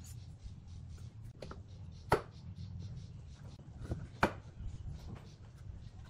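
Pine boards being handled and set into metal pipe clamps on a workbench: a series of sharp wooden knocks and clicks, the two loudest about two seconds apart, over a low steady hum.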